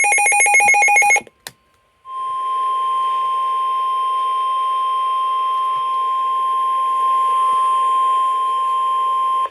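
Emergency alert tones on NOAA Weather Radio. A burst of warbling digital header data ends about a second in. After a short gap with a click, the steady 1050 Hz warning alarm tone sounds over faint radio hiss for about seven seconds and cuts off sharply. The tones signal that a warning, here a severe thunderstorm warning, is about to be read.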